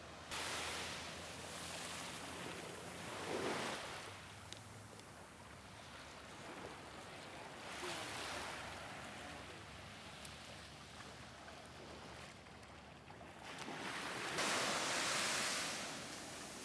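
Small waves breaking and washing up a sandy beach: a steady surf hiss that swells every few seconds, loudest near the end.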